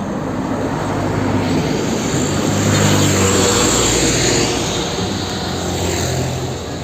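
Water spraying steadily onto a muddy plastic toy tow truck to wash it, a continuous rushing hiss with a low hum underneath, cut off abruptly at the end.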